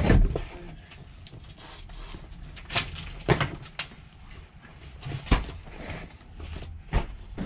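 Tubular marquee frame poles and corner fittings knocking and clunking against each other and the van floor as they are lifted out: a series of separate sharp knocks, spaced a half second to a second and a half apart.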